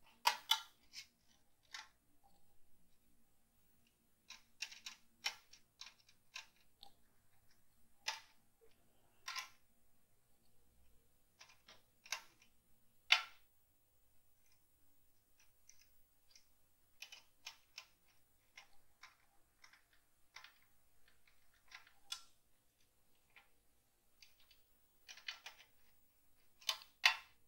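Irregular small clicks and taps of a screwdriver working the screw terminals of a metal-cased 24 V DC switching power supply, together with handling of the unit. The clicks come singly and in short clusters.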